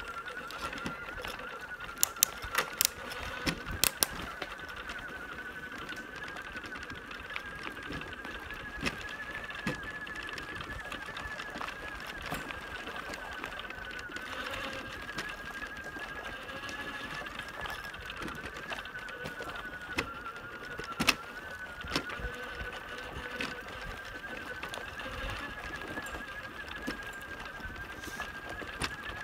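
Electric motor of a wheelchair trike whining steadily, rising a little in pitch over the first several seconds, as it rolls over a gravel lane. Sharp knocks and rattles from the trike, a cluster about two to four seconds in and two more near the end.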